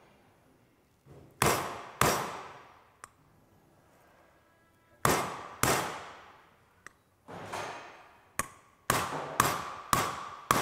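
Hammer blows driving a new bearing into the aluminium crankcase half of a Honda PA50 two-stroke moped engine: about ten sharp, ringing metallic strikes in uneven groups, coming quicker near the end. The later blows ring with a clearer tone, the change in tone that shows the bearing has bottomed out and is fully seated.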